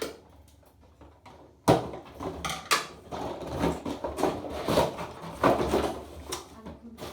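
Toy packaging being handled as a toy car is worked out of its box: a sharp knock about one and a half seconds in, then irregular rustling, scraping and clicking.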